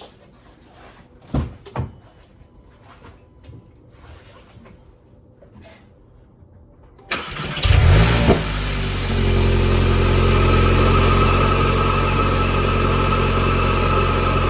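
A few light clicks and two thumps, then about seven seconds in the VW GTI Mk8's 2.0-litre turbocharged four-cylinder cranks and starts, flaring up briefly before settling into a steady idle. The engine is running with a newly fitted CTS turbo inlet.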